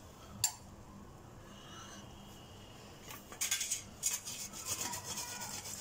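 Kitchen utensils clinking and scraping against dishes, in a quick run of rattling strokes that starts about three seconds in, after a single sharp tick near the start.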